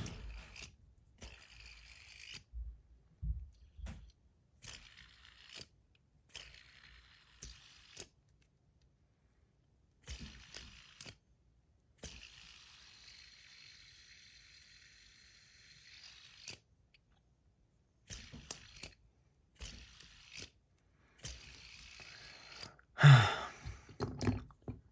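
Fidget spinner (the Fuse) being flicked and handled in the fingers: scattered small clicks and scrapes, with a few seconds of faint steady whirring in the middle as it spins. A louder, breathy sound comes near the end.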